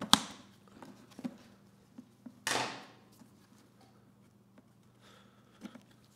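Plastic snaps and knocks as the spark plug access cover on a Honda EU2000i generator's plastic shell is unlatched and opened: a sharp snap at the start, a knock about a second later, and a short scraping rustle about two and a half seconds in, followed by a few light ticks as the plug cap is handled.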